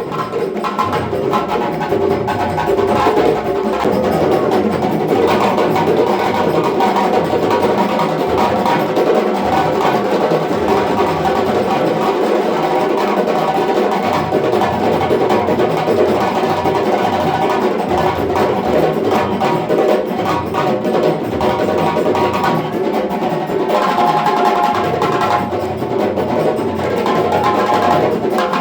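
African drumming: hand drums playing a dense, fast, unbroken rhythm.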